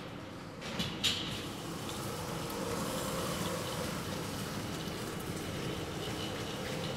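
Steady outdoor background noise with a faint low hum, and a couple of short clicks about a second in.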